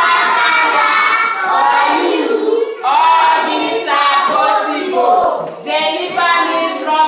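A group of children singing and shouting together, loud and sustained, with short breaks between phrases.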